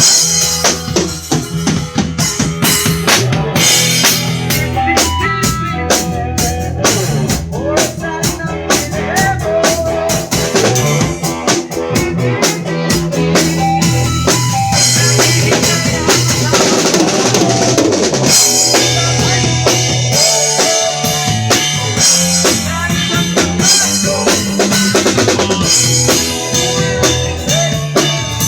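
Band playing live, with the drum kit loudest: a steady kick and snare beat with rimshots over sustained low bass notes and other instruments.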